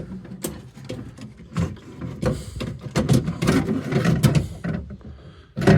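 Irregular clicks, knocks and rattles of a power-window regulator and motor assembly being handled and fitted into a pickup truck's door.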